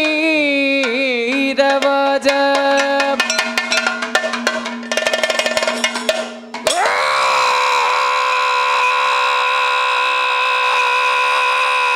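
Kathakali music. The singer's phrase trails off in the first second, then drum strokes and metallic clangs beat over a held low note. About halfway through, a loud, long, steady note sweeps up in pitch and holds.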